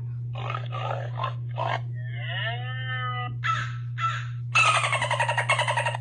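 A string of different animal calls, one after another: short rough calls, a pitched call that rises and falls about two seconds in, then a loud, rapidly pulsing call near the end. A steady low hum runs underneath.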